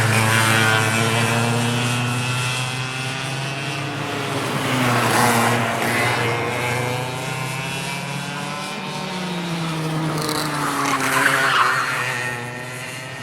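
Go-kart engines running around a track, more than one at once. Their pitch rises and falls as they accelerate, brake and pass, with louder passes about five seconds in and again around eleven seconds, then easing off near the end.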